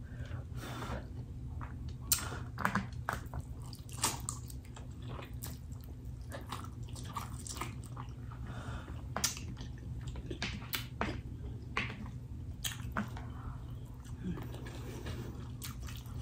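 Close-up chewing of a mouthful of spicy fire noodles, with irregular sharp mouth clicks and smacks spread through it.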